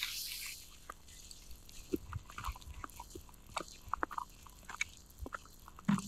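Footsteps crunching in fresh snow: faint, irregular crunches and clicks, with a brief hiss at the start.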